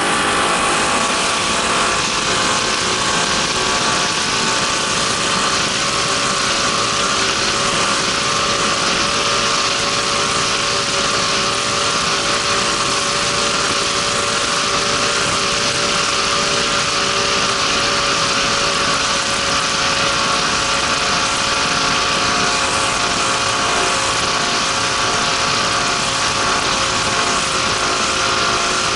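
Race powerboat's engine running flat out at a steady pitch, heard from on board over a constant rush of wind and water.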